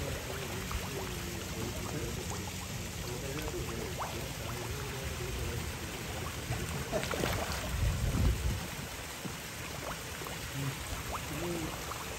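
Pond water splashing and trickling as a crowd of koi churn the surface, with many small slaps and drips. A louder low rumble comes about seven seconds in.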